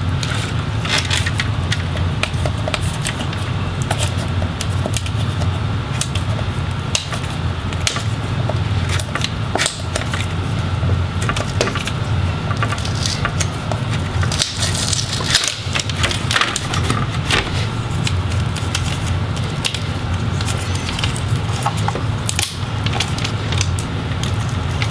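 Hands handling a laptop LCD panel and its video cable: scattered crackles and clicks of plastic film and adhesive tape being worked loose, over a steady low hum.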